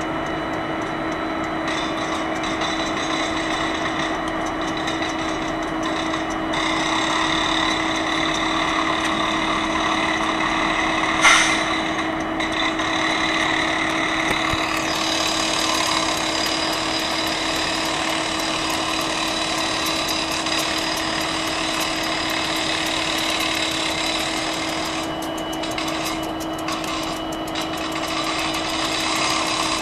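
Several Canadian Pacific diesel-electric locomotives idling with a steady hum, with one sharp knock about eleven seconds in.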